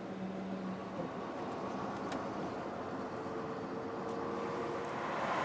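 Steady engine and road noise of vehicles driving in convoy, heard from a moving vehicle, slowly getting louder. A faint engine tone rises slightly about three seconds in.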